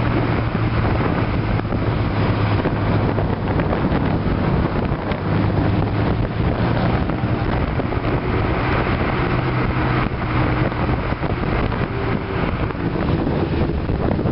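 A moving car's engine and tyre noise with wind buffeting the microphone, which is held out beside the car. There is a steady low drone throughout.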